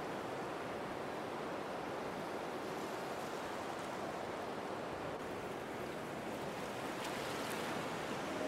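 Sea surf: a steady rush of waves breaking on a shore.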